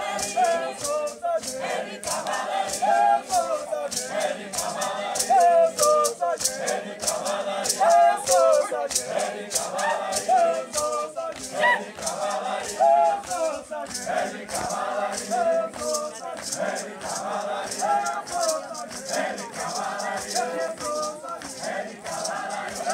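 A group of voices singing a chant together, with maracas shaken in a steady rhythm over the singing.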